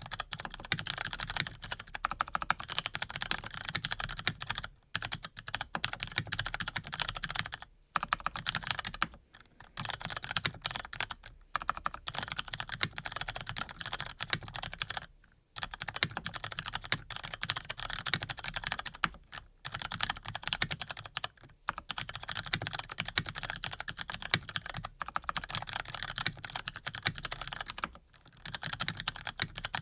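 Fast continuous typing on a Razer BlackWidow V3 Pro mechanical keyboard with lubed Cherry RGB Brown tactile switches, a dense run of key clicks broken by short pauses every few seconds.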